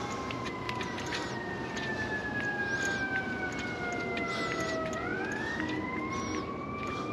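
Siren wailing, its pitch falling slowly for about five seconds and then rising again, with scattered faint clicks.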